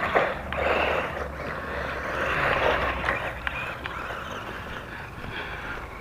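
A small electric 1:16 four-wheel-drive RC ATV driving over playground wood chips: an uneven whirring rustle that rises and falls as it drives, with a few short clicks.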